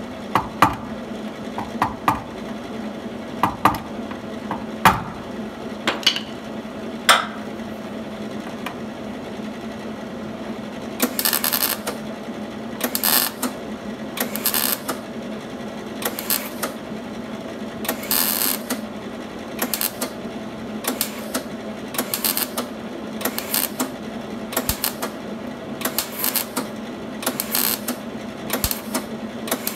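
A hammer striking the 1950 Plymouth's quarter-panel sheet steel against a dolly, about seven sharp blows a second or so apart. After a pause of a few seconds, a MIG welder lays short tack or stitch welds in quick bursts of about one a second, over a steady low hum.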